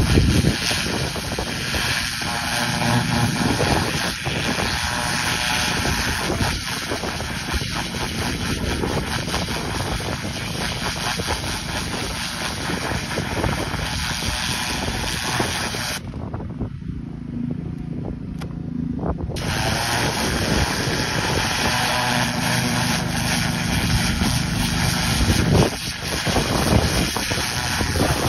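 A 3200 psi pressure washer running, its cold-water jet from a #4 oscillating nozzle hissing against a coyote hide to flesh it. The high hiss drops out for about three seconds a little past the middle.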